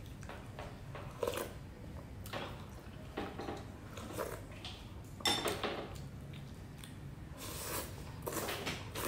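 Close-up eating sounds of a person eating a bowl of hủ tiếu rice noodles: chewing and lip smacks, and a metal spoon clinking against the glass bowl, sharpest about five seconds in. Near the end come noisy slurps as noodles are sucked in.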